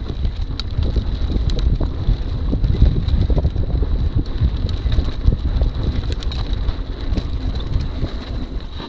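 Wind buffeting the microphone over the rumble and rattle of a mountain bike rolling fast downhill on a rough grassy trail, with frequent sharp clicks and knocks from the bike as it goes over bumps.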